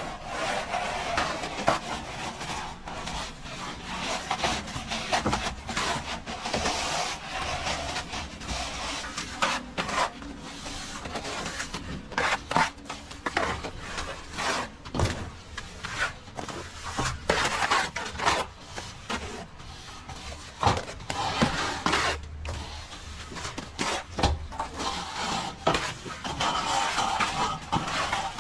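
Plastering trowel scraping and rubbing across plaster in irregular strokes, with scattered sharp clicks and knocks.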